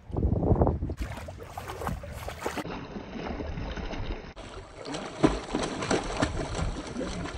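Pool water splashing and sloshing as a toy poodle paddles and is let into the water.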